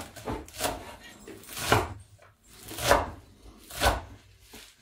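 Kitchen knife chopping leafy mallow greens on a wooden cutting board: separate knocks of the blade on the board, about one a second.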